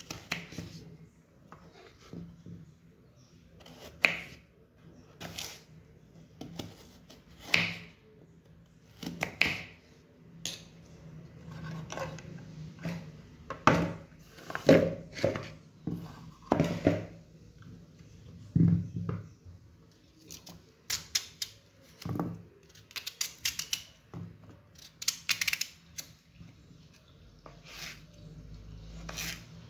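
Kitchen knife cutting peeled raw potatoes into fry sticks on a wooden cutting board: irregular knocks of the blade going through the potato onto the board, some coming in quick runs of several strokes.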